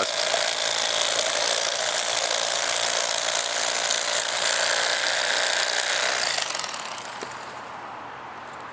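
Cordless Bubba Blade electric fillet knife running, its serrated 7-inch E-Flex blades buzzing steadily as they saw along the backbone and through the rib bones of a fish. The buzz falls away sharply about six and a half seconds in.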